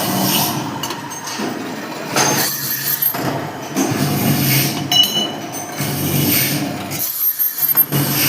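Workshop machine noise with metal parts clinking and knocking, a few sharp clicks near the end.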